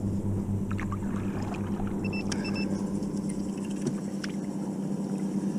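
Steady low hum with a few small clicks and two short high beeps about two seconds in.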